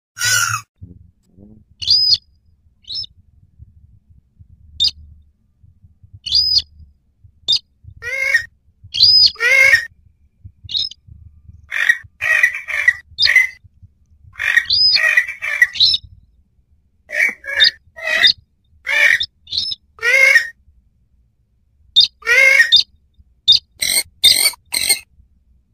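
Lure recording of a swamphen ('mandar biru') calling in duet with a rice-field rail ('sintar sawah'). It is loud, irregular bursts of calls, mixed with short, sharp, high-pitched notes.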